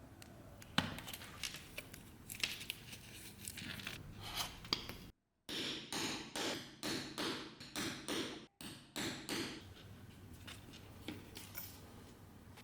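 Workshop hand-tool work: a few sharp clicks and knocks, then a run of about seven even scraping strokes, roughly two a second, broken twice by sudden drops to silence.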